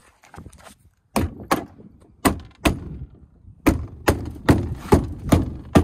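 A plastic car door trim panel being struck by hand to snap its retaining clips into the door: about ten sharp thumps starting about a second in, coming faster in the second half.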